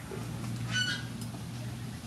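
A single short bird call a little under a second in, over a steady low hum.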